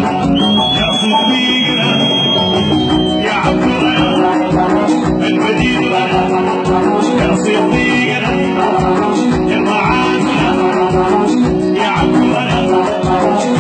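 Dance music with a steady drum beat and a high note held for about three seconds near the start.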